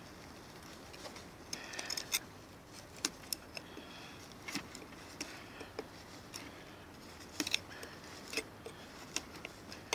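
Fixed-blade N695 steel knife chopping and cutting a notch into a frozen, wet branch about 4 cm thick: irregular sharp knocks of the blade biting into the wood, with short scraping cuts between them, a stroke every half second to a second.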